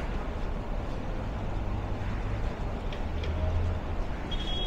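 City street traffic: a steady wash of passing vehicles with a low engine hum from buses or cars. A short high-pitched tone sounds near the end.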